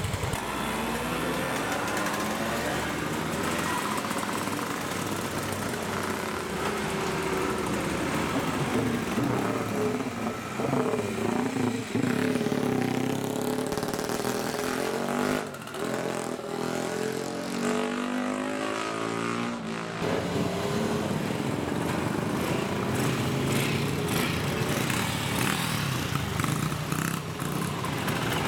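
Vintage motorcycle engines running and revving as several bikes and a scooter ride past one after another, the pitch rising and falling as they go by.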